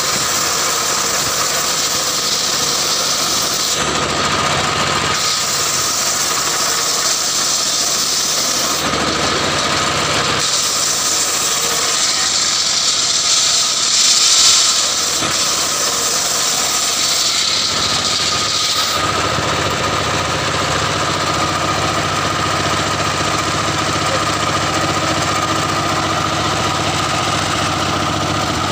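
Stationary diesel engine running steadily, belt-driving a homemade table circular saw that rips old mahogany planks lengthwise. Three long cuts fill the first two-thirds with a hissing, rasping blade noise over the engine; the longest, near the middle, is the loudest. After that the blade spins free with the engine.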